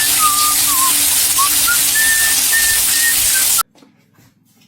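A loud steady hiss with a short whistled tune of gliding notes over it, both cutting off abruptly about three and a half seconds in.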